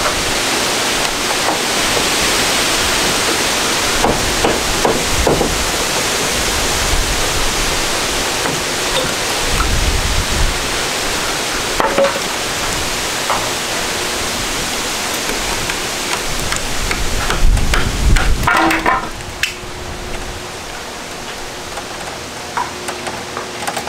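Wind rushing over the microphone in gusts, easing somewhat near the end, with scattered knocks and clatter from work on the cabin's wooden roof rafters.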